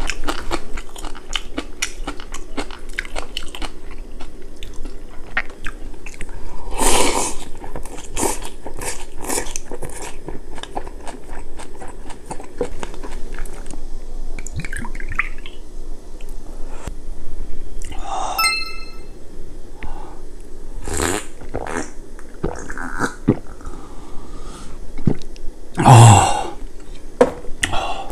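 Close-miked crunchy chewing and biting of freshly made kimchi and gukbap, with a soju bottle poured into a shot glass about halfway through.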